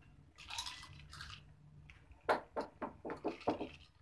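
Wet eating sounds: slurping and smacking while eating spicy snacks, with a run of quick wet smacks about halfway through.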